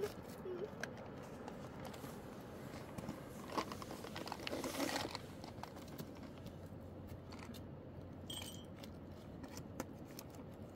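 Faint rustling and scattered small clicks, like things being handled, with a longer, louder rustle about four to five seconds in.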